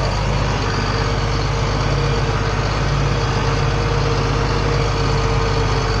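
John Deere 4555 tractor's six-cylinder diesel engine running steadily as the tractor drives slowly, heard from inside the cab. A steady, higher-pitched whine joins it about half a second in.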